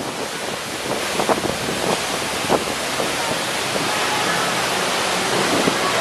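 Lembah Anai waterfall, about 35 m high, pouring into a rocky plunge pool: a steady rush of falling and splashing water.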